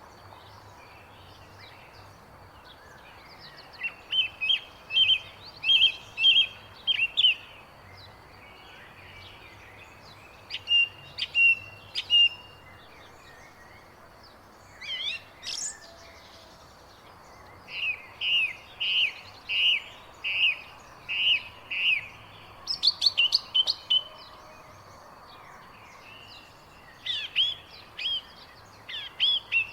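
Birds chirping in runs of short, high chirps, several a second, with pauses of a few seconds between runs, over a faint steady background hiss.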